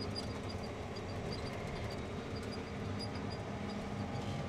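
Steady engine drone of a John Deere 9430T tracked tractor heard from inside its cab, with faint high ticks now and then.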